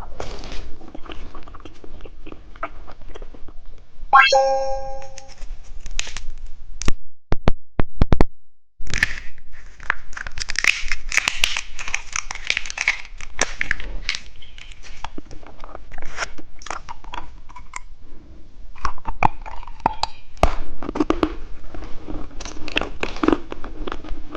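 Plastic candy packaging being handled, crinkled and torn, with sharp clicks and taps; the crinkling is densest in the middle stretch. A brief pitched tone sounds about four seconds in.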